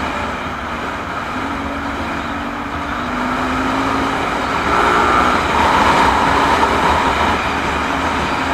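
Steady rush of wind and road noise from a moving vehicle, picked up by an action camera mounted on it, with a low engine hum underneath.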